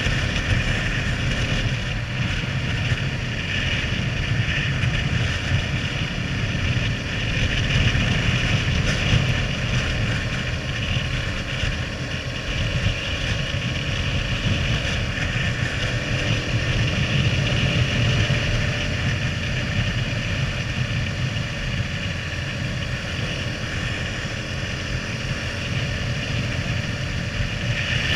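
KTM Duke 390's single-cylinder engine running steadily at highway cruising speed, mixed with wind rushing over the camera microphone.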